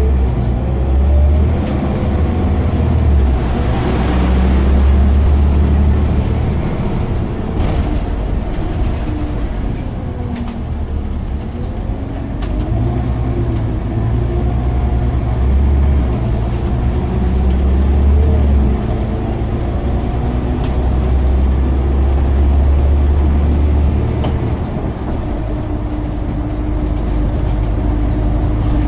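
Scania OmniCity single-deck bus heard from inside the passenger saloon while it drives: a loud, low engine drone that rises and falls in pitch several times as the bus speeds up and slows, with a few short clicks from the body.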